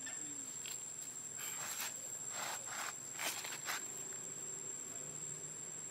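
Steady high-pitched drone of insects, with a few brief rustles in the middle as monkeys move on dry leaf litter.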